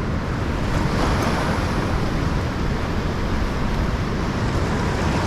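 Steady rushing noise of wind and moving river water, with a strong low rumble.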